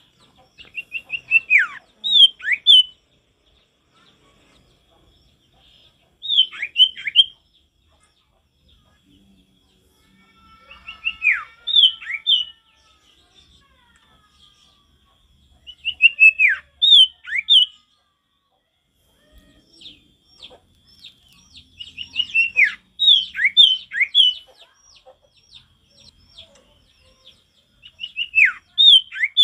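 Caged male common iora (sirtu) singing in six short phrases about five seconds apart. Each phrase is a quick run of sharp whistled notes, most of them dropping in pitch.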